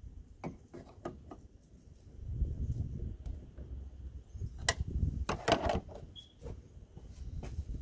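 Scattered clicks and knocks of a flat screwdriver working at a hood gas strut's end fitting, prying it off its ball stud. A cluster of sharper clicks comes about five seconds in.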